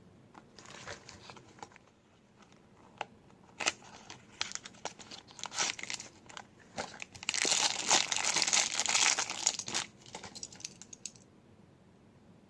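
Toy packaging crinkling and tearing as it is opened by hand: scattered crackles, then a dense stretch of crinkling in the second half that stops near the end.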